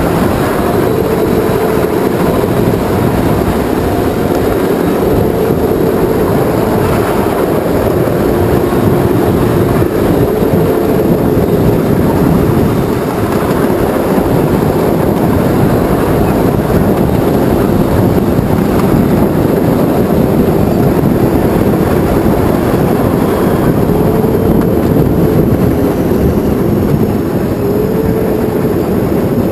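Miniature ride-on tram running along narrow-gauge track: a steady rumble of wheels on rail with a motor whine that gently rises and falls in pitch as the speed changes.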